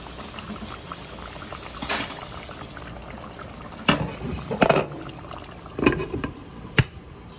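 Chicken and potato curry simmering in a pan, a steady bubbling hiss. In the second half come several sharp clinks and knocks, the last of them as a glass lid is set on the pan.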